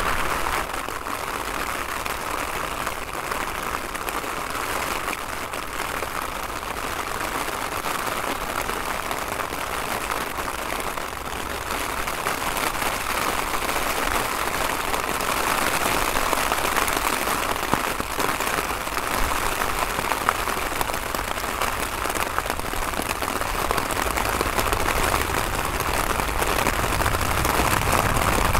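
Heavy rain pouring down in a dense, steady hiss. Over the last few seconds a deeper rumble grows in as a jet airliner lands on the wet runway.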